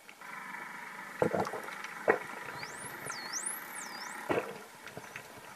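Dolphin whistling: a high whistle that swoops up and down twice in the middle, over a steady hum with a few sharp knocks.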